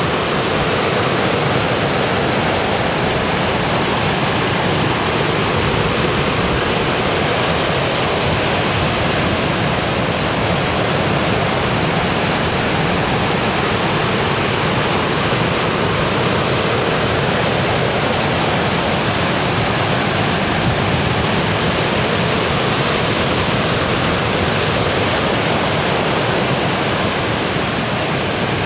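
Ocean surf breaking and churning, a loud, steady rush of water noise with no separate wave crashes standing out.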